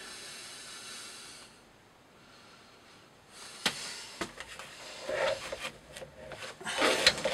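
A pen scratching on paper for a second or so. After a short pause come clicks, knocks and rubbing as a thick natural-fibre rope is handled and pulled through a knife-testing rig, louder towards the end.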